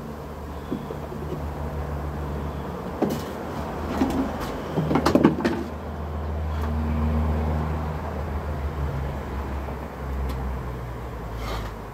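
Honeybees buzzing in the air around wooden hives, their hum rising and falling as they fly past, with a cluster of wooden knocks and clatter about three to five seconds in from hive boxes and frames being handled.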